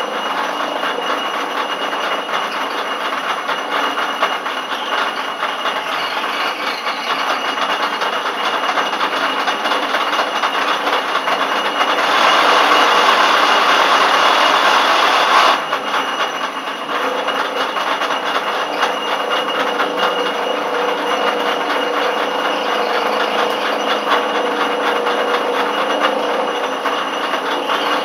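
Schaublin 102 CNC lathe running through threading passes on an M27x1.5 thread, spindle at 250 rpm with a threading insert. A steady mechanical hiss with a faint high whine, louder for about three and a half seconds near the middle, with a lower steady tone setting in over the second half.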